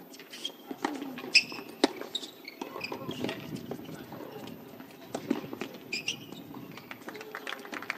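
Tennis rally on a hard court: a series of sharp racket strikes and ball bounces, over a low murmur of voices.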